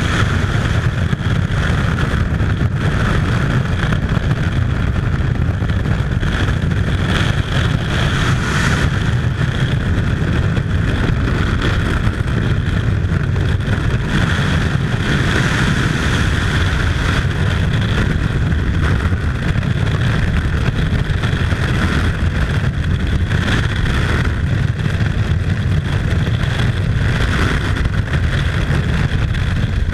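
Loud, steady rush of freefall wind over a skydiver's body-worn camera microphone.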